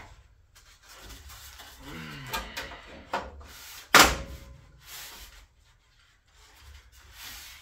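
A truck grille and headlight assembly being handled and pushed into place against the front of the truck: rubbing and scraping, with one sharp, loud clunk about four seconds in.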